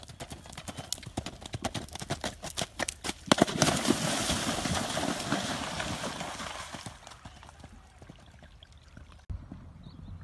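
Connemara-type pony's hooves cantering on gravel in a quick run of hoofbeats. About three seconds in comes a sudden loud splash as it goes into the water, and the splashing carries on for a few seconds before fading.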